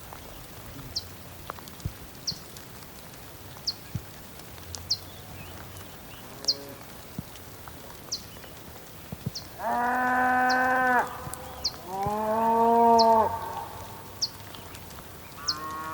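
Two long, pitched animal calls, each about a second, coming one after the other in the second half. Short high chirps repeat about once a second throughout, over a faint steady hiss.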